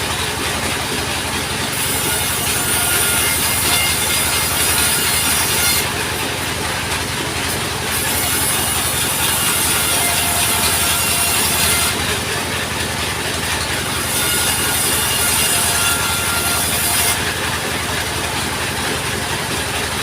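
Sawmill saw running and cutting through timber, a steady machine sound with a high sawing hiss that comes and goes in stretches of a few seconds.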